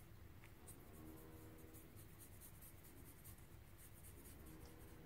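Faint, irregular strokes of a small paintbrush on paper, spreading water over water-soluble Stabilo All black pencil shading to activate it, over low room hum.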